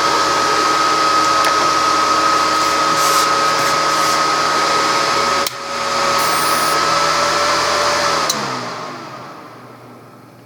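24 V cooling fan of a Resanta 190K welding inverter running with a steady whir and whine, briefly dipping about five and a half seconds in, then winding down and fading as the power is cut.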